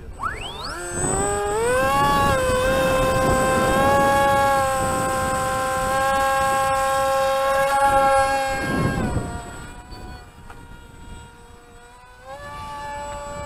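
Electric motor and propeller of a radio-controlled motor glider spinning up to a steady high whine at full throttle for the hand launch, with a rush of air. The whine falls away about nine seconds in and comes back fainter near the end, with the plane up in the air.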